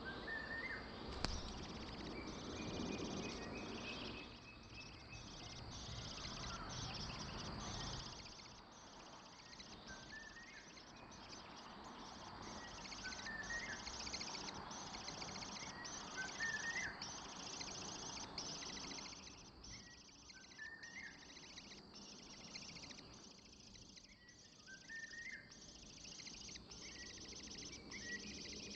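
Short bird chirps repeating every two or three seconds over a steady, high-pitched, pulsing buzz, with a low outdoor rumble during the first several seconds.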